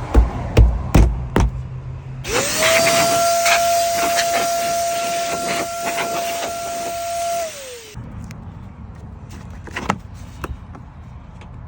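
A few light knocks, then about two seconds in an electric vacuum cleaner is switched on: its motor whine rises quickly to a steady pitch over a loud rush of air, runs for about five seconds, then winds down and cuts off.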